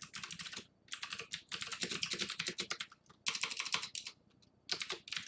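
Fast typing on a computer keyboard: runs of rapid keystrokes broken by a few short pauses.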